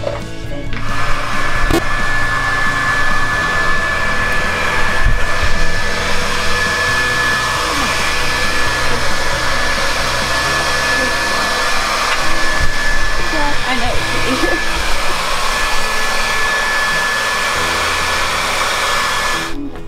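Handheld hair dryer blowing steadily on a miniature horse's coat, with a thin high whine over the rush of air. It starts about a second in and cuts off near the end.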